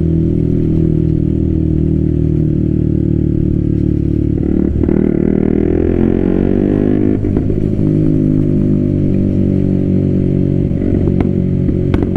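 Single-cylinder KTM Duke 125 motorcycle engine through an IXIL Hyperlow exhaust, ridden under way. The engine note rises, drops about 7 seconds in as it shifts up, then rises again as it pulls through the gears. A few sharp exhaust crackles come near the end.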